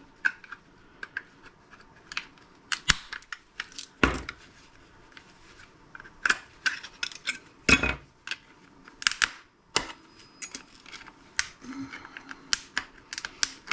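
A small plastic remote-starter housing being worked apart with hand tools: irregular sharp clicks, snaps and cracks, with two heavier knocks about four and eight seconds in.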